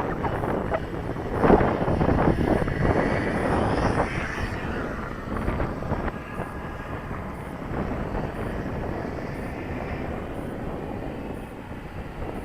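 Electric-powered E-Flite Carbon-Z T-28 RC model airplane flying, its motor and propeller drone loudest over the first four seconds and then fading, with wind buffeting the microphone throughout.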